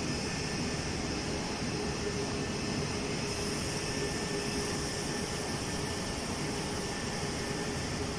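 Steady room noise from air conditioning: an even hiss with a faint hum underneath.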